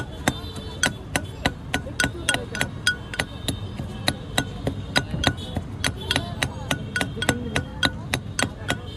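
A pestle pounding green chillies and coriander in a stone mortar, at about three sharp knocks a second, each with a short ringing clink.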